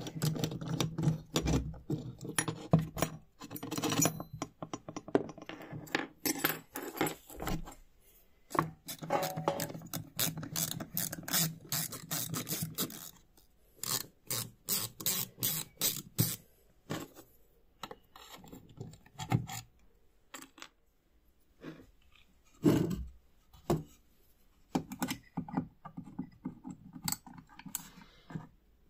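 Ratcheting screwdriver backing old screws out of a metal bracket and a wooden base: runs of quick ratchet clicks mixed with scraping of the bit in the screw heads, in bursts with short pauses between them.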